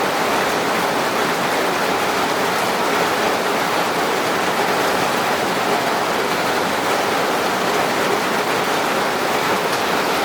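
Steady rain falling, an even hiss with no breaks or single drops standing out.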